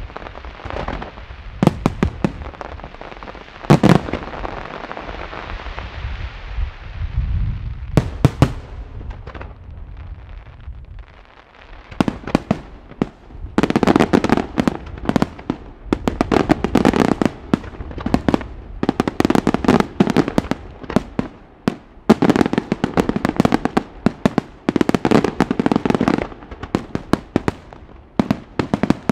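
Professional aerial fireworks display by La Rosa srl: shells bursting with sharp reports and crackling for the first several seconds, easing off around ten seconds in. From about thirteen seconds in, dense rapid volleys of reports come in clusters of a few seconds each, with short gaps between.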